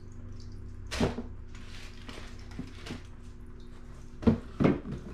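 Cardboard shoebox being handled while shoes are packed into it and its lid is put on: a sharp knock about a second in, a few light taps and rustles, then two louder knocks close together near the end.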